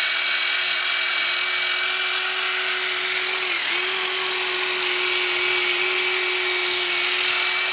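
DeWalt cordless drill spinning a wire wheel brush, scrubbing rust off the front wheel hub area. It runs at a steady speed, with a hissing scrape of the wire, and briefly dips in speed about three and a half seconds in.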